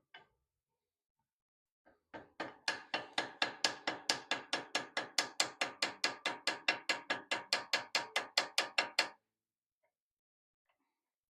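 A hammer tapping on metal in a fast, even run of light strikes, about five a second for some seven seconds, each with a short metallic ring.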